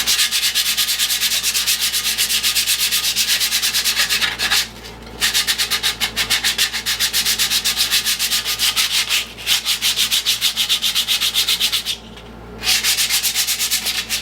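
Hand sanding of a mower part: rapid back-and-forth abrasive strokes, about five a second, stopping briefly three times.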